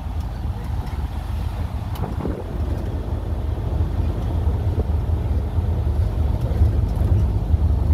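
Low, steady rumble of a seafront land train running as it rolls along the promenade, heard from on board.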